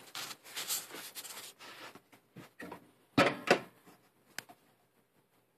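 Handling noise: rustling with a few light clicks and knocks, and a louder rustle about three seconds in.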